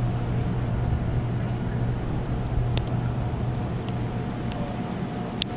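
Steady low motor hum over a background of outdoor noise, with a few faint short high ticks near the middle and end.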